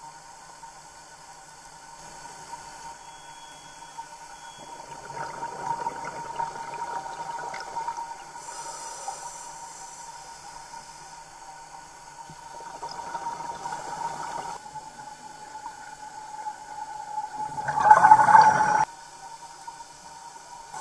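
Scuba diver's exhaled bubbles rushing from the regulator in three breaths, the last and loudest near the end stopping abruptly, over a steady whine.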